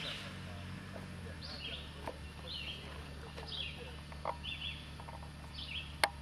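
Birds chirping repeatedly over the low, steady hum of a lifted off-road SUV's engine idling. A single sharp click sounds near the end.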